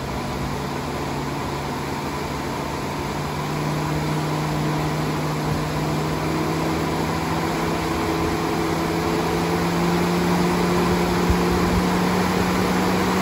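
Twin brushless electric radiator cooling fans from a 2014-and-newer GM pickup, run on a PWM signal, blowing a steady rush of air with a motor hum that rises slowly in pitch and grows louder as the fans speed up.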